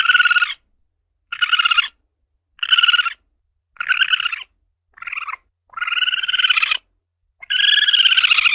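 Asian palm civet (luwak) calling: a string of seven short, harsh calls about a second apart, the last two drawn out longer.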